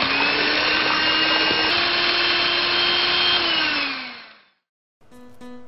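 A small electric motor whirring, like a kitchen blender: it clicks on, runs at a steady pitch, then winds down and falls in pitch near the end before cutting out.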